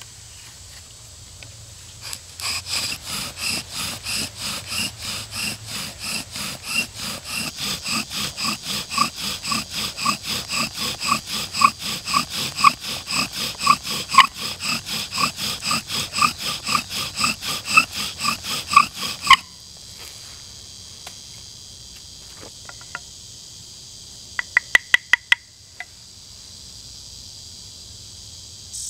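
Bow drill in use: the wooden spindle squeaks in the fireboard notch with every stroke of the bow, about three strokes a second, growing louder as friction builds heat for an ember, then stops suddenly about two-thirds of the way through. A quick run of about six clicks follows near the end.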